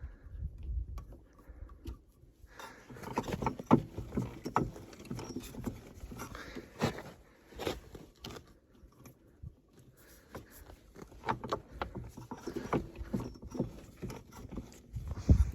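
Snowmobile secondary clutch and drive belt being turned by hand, giving irregular scraping, clicks and knocks as the belt rides up out of the clutch sheaves. A heavier thump comes near the end.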